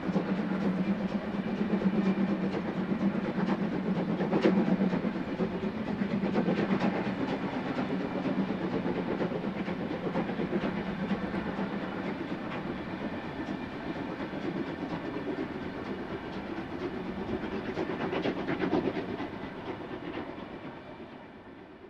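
Passenger train hauled by a Prussian T18 steam tank locomotive rolling past and moving away, its wheels clicking over the rail joints. The sound fades out over the last few seconds.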